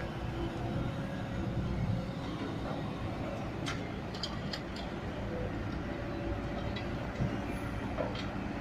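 Mahindra 415 DI tractor's diesel engine running steadily under load while hauling a loaded trolley, with a few sharp clicks about halfway through.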